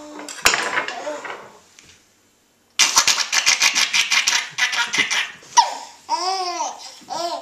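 Toddler laughing hard: a rapid run of breathy laughs starting about three seconds in, after a brief dead gap, then high-pitched squealing giggles near the end.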